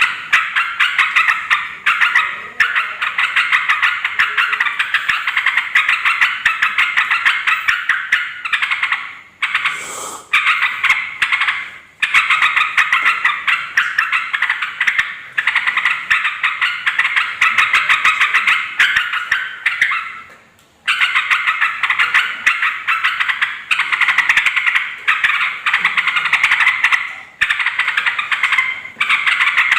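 Yellow-vented bulbuls (trucukan) chattering noisily in long runs of rapid, busy calls. There are short breaks about ten, twelve and twenty-one seconds in.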